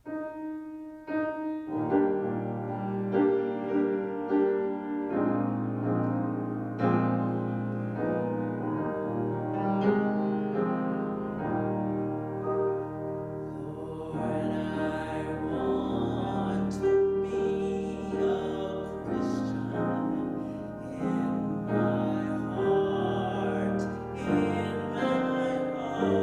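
Keyboard music playing slow, sustained chords, with a wavering higher melody line joining about halfway through.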